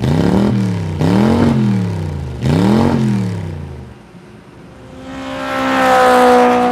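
Engine revving up and down about three times, each rise and fall lasting about a second and a half. It is followed by a steadier, higher engine note that swells and fades like a car going past, most likely a sound effect laid over the clamp sliding freely in the groove.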